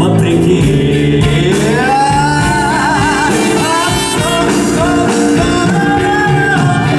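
Live band music with a male singer: the last word of a sung line, then a long sustained melodic line with vibrato over the band's chords.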